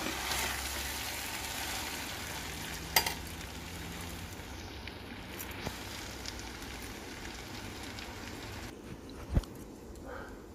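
Chicken fried rice sizzling in a pan while a metal spatula stirs it, with a sharp clink about three seconds in and a knock near the end. The sizzle drops a little in level near the end.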